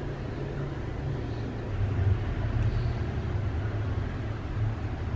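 A steady low rumble, a little louder from about two seconds in.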